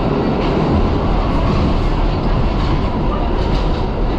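New York City subway train running through a tunnel, heard from inside the car: a loud, steady rumble of wheels on the rails.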